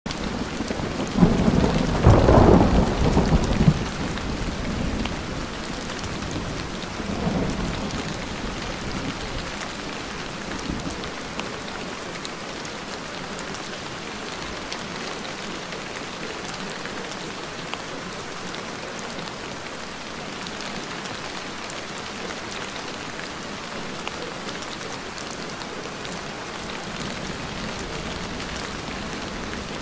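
Steady rain with thunder. A loud rumble of thunder comes about a second in and fades by about four seconds, a fainter rumble follows a few seconds later, and then the rain hisses on evenly.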